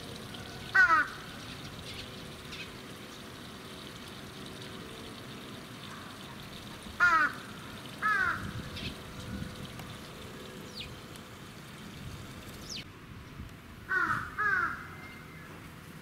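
A crow cawing: a single short caw, a pair of caws about a second apart partway through, and a quicker pair near the end, each caw falling slightly in pitch. Faint thin bird chirps come in between.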